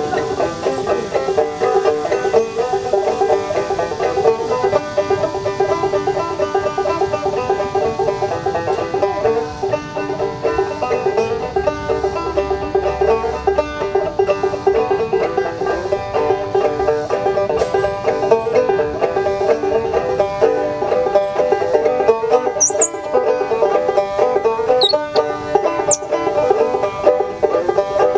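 Banjo played as a lively tune, a steady stream of quickly picked notes.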